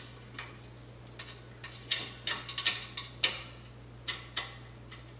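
Irregular light clicks and ticks of a 3 mm hex driver working M3 screws loose on the 3D-printer bed frame's Z-bearing carriages, the sharpest about two seconds in. A steady low hum runs underneath.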